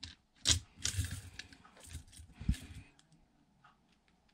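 Irregular crunching and crackling of candy being chewed close to the microphone, in a run of short bursts that stops about three seconds in.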